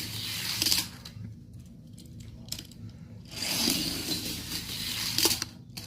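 Small die-cast Hot Wheels cars rolling fast along plastic track, a rattly rolling noise in two runs of about a second and two seconds with a quieter gap between.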